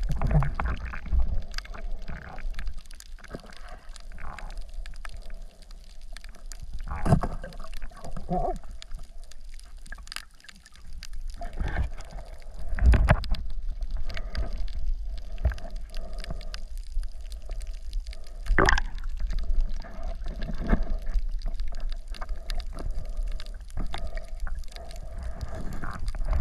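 Seawater sloshing and gurgling around a diver, with scattered knocks and a few louder thumps.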